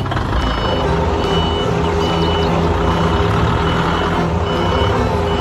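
Hangcha forklift's engine running as it reverses, its reversing alarm sounding a short high beep about every three-quarters of a second.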